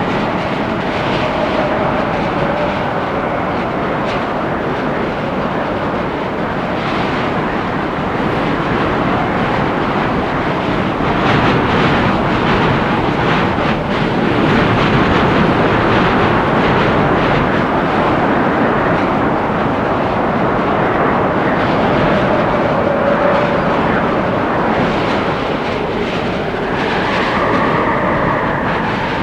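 Windstorm gusting through forest trees: a continuous rushing noise that swells and eases, with faint gliding howls from the wind.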